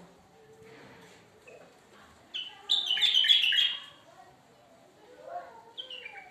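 Bulbul singing: a loud burst of quick whistled notes about halfway through, and another phrase beginning near the end.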